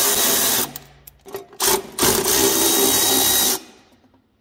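Cordless ratchet with a Torx bit running, backing out the Torx bolts of a snowmobile's belly-pan access panel. One run stops under a second in, then a short blip, then a second run of about a second and a half.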